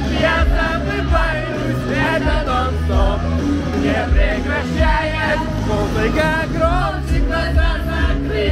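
Karaoke: a backing track with a steady bass line, and a man singing along over it.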